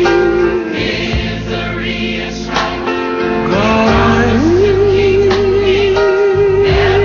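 Gospel music: a choir singing long held notes with vibrato over a steady bass, with a rising vocal glide about halfway through.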